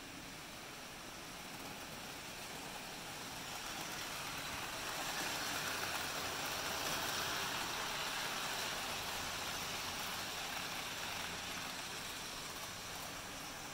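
Model 4-6-4 Hudson steam locomotive and its train rolling on model railroad track, a steady rushing of wheels and motor that grows louder as it passes close by, about five to nine seconds in, then fades.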